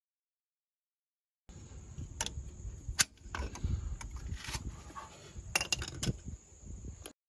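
Metal clinking and knocking of tools and brake parts being handled, with several sharp knocks. It starts after a stretch of silence and cuts off abruptly.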